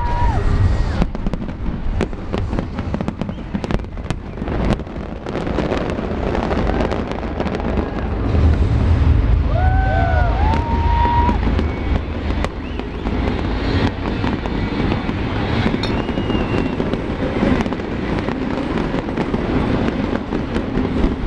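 A big fireworks display going off: many sharp bangs in quick succession over a continuous low rumble of explosions.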